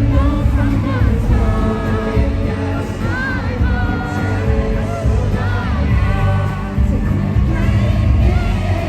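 Loud pop music with a strong bass beat, and someone singing along over it at close to a scream.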